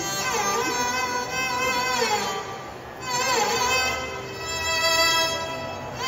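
Music for a Mohiniyattam dance: a violin plays a sliding, ornamented melody over a held drone.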